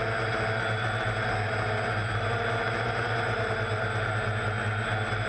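DJI Phantom quadcopter's motors and propellers running in flight, picked up by the camera mounted on the drone: a steady hum with several constant tones, at an even level throughout.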